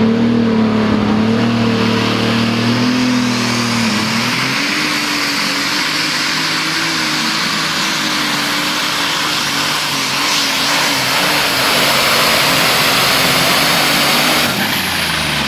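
International Harvester super/pro stock pulling tractor's turbocharged engine running at full throttle as it pulls the sled down the track. Its pitch dips about four seconds in and then holds steady, and it drops off near the end as the pull finishes.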